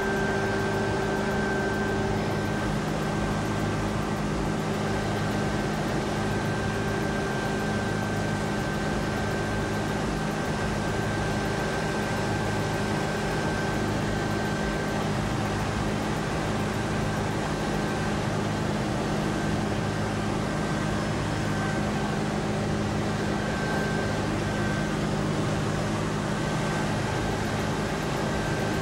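Steady mechanical drone with a constant low hum and a deeper throb that pulses slowly, about once a second, unchanging throughout.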